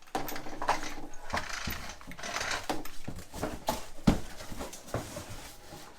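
Metal mitre saw stand being turned and shifted by hand: a run of irregular knocks, clicks and clatter, with one sharp knock about four seconds in.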